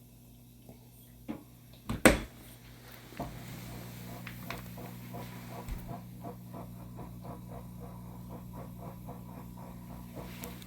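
Frigidaire dishwasher on a quick wash test: a sharp click about two seconds in, then a steady electrical hum sets in, with light ticking about three times a second.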